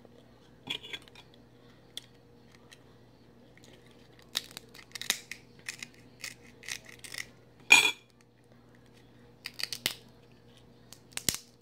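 Cooked Dungeness crab shell being cracked and picked apart by hand: a run of irregular sharp snaps and crackles, the loudest about two-thirds of the way through.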